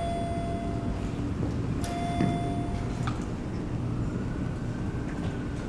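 Steady low rumble of a large lobby's background hum, with no speech. A faint steady tone sounds twice, near the start and again about two seconds in, and there are a couple of light clicks.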